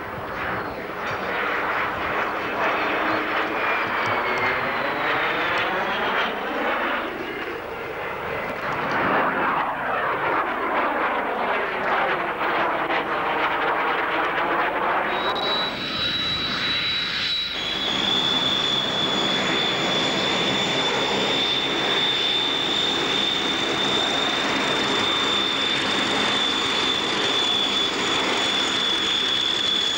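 Display aircraft passing overhead twice, the sound swelling and fading with a sweeping, phasing whoosh. After a break a little past halfway, a steady jet noise with a high whine as the Red Arrows' BAE Hawk jets climb in formation.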